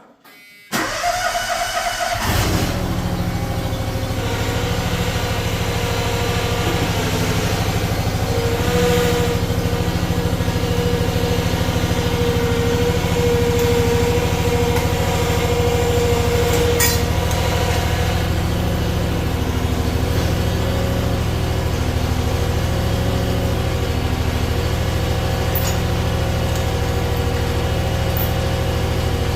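Skid steer's Honda GX690 V-twin petrol engine cranked and started about a second in, then running steadily, with a tone above it that wavers slightly in pitch.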